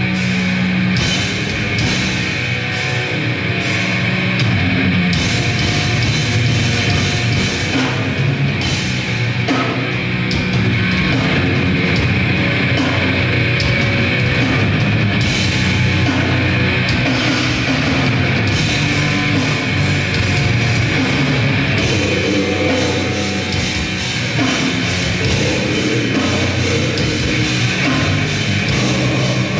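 Grindcore band playing live: distorted guitar and bass over steady, hard-hit drums, loud and continuous.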